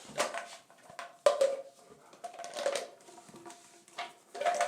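Plastic pipes and fittings clattering and knocking as they are handled and pushed together, several irregular knocks over a few seconds.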